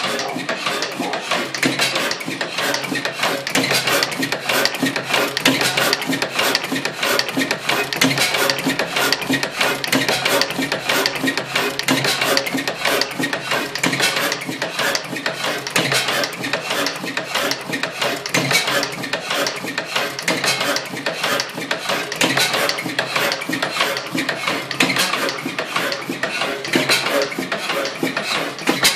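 1907 Blackstone 3hp hot bulb oil engine running steadily, with a fast, continuous metallic clatter from its moving parts. The owner says it still needs a little work to run smoothly.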